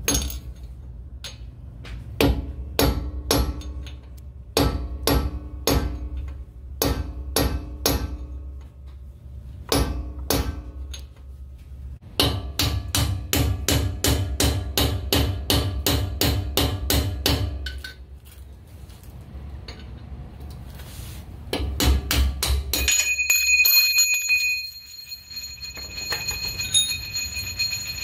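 Hammer blows on a brass punch, metal on metal, driving the pinion bearing race out of a Dana 44 (M210) front axle housing. The blows come spaced at first, then in a fast run of about four a second, then a few more, and a steady high tone sounds near the end.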